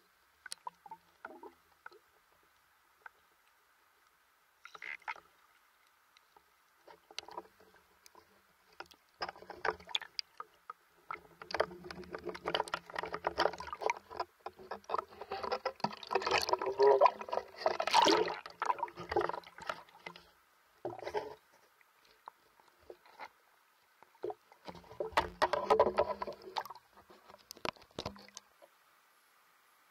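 Water splashing and sloshing around a half-submerged camera as a swimmer moves at the surface, in irregular bursts. It is sparse at first, heaviest through the middle, and comes again briefly near the end.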